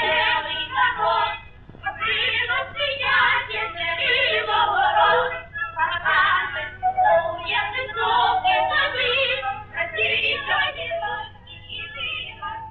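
Cartoon score music with singing voices, from a 1935 film soundtrack, over a steady low hum.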